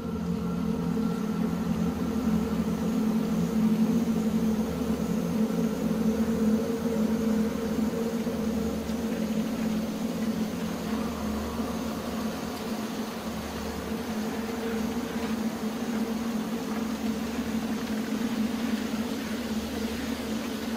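Dark ambient drone: a few low tones held steady over a slow, throbbing low rumble.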